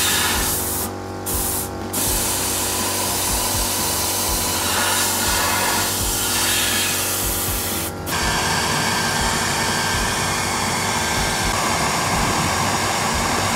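Hair dryer running, blowing a steady rush of air with a low motor hum into a car headlight housing through the bulb opening to dry out water that has leaked inside. The air noise dips briefly about a second in and turns brighter and hissier about eight seconds in.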